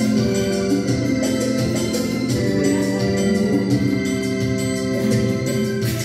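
Electronic keyboard played live with an organ voice: held organ chords and melody notes, moving to new pitches every second or so.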